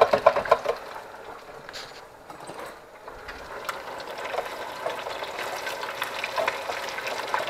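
A quick run of clicks and clatters at the start, then battered fish frying in a deep fryer: the hot oil sizzles and crackles, growing steadier from about three seconds in.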